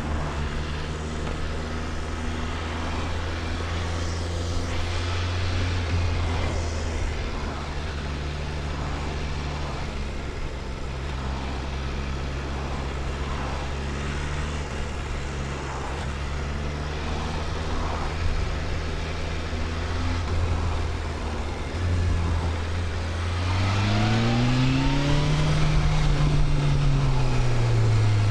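BMW S1000RR's inline-four engine running at a steady low speed for most of the stretch, then revving up, easing off and climbing again near the end.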